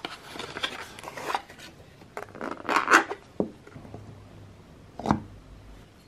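Skincare packaging being handled: a cardboard box rustling and scraping, loudest about three seconds in. A terracotta pot and its lid give two short, sharp knocks, the second about five seconds in.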